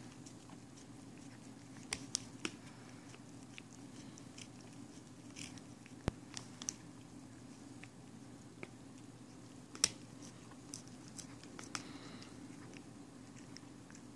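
A cat licking a potato chip: small, irregular clicks of its tongue and mouth, over a faint steady low hum.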